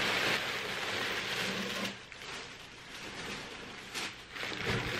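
Packaging rustling as a large shipping box is opened by hand, loud for about two seconds and then dying down, with a couple of light knocks near the end.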